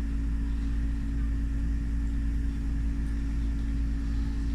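Steady low hum with a few constant low tones, an unbroken background drone without distinct events.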